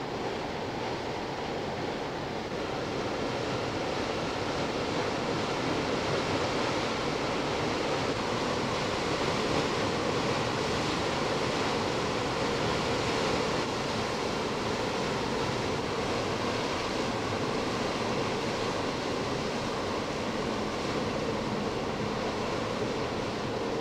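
Bow wave of a passing cargo ship: water rushing and splashing steadily as the hull pushes through the canal.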